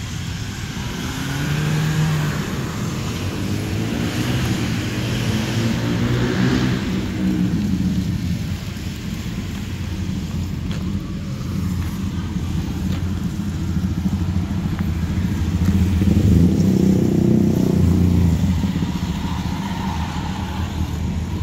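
Road traffic, mainly motorcycles and scooters, passing one after another. The engines swell and fade as each goes by, with the loudest pass about three-quarters of the way through.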